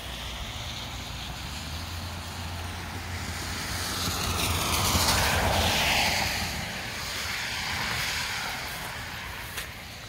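A vehicle passing: its sound swells to a peak around the middle and falls away, over a steady hiss.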